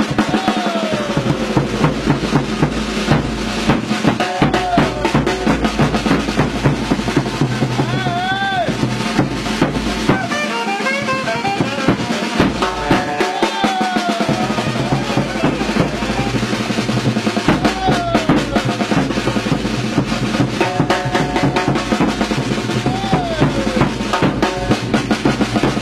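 Background music with a busy, fast drum beat over a steady bass, with a few sliding melodic notes.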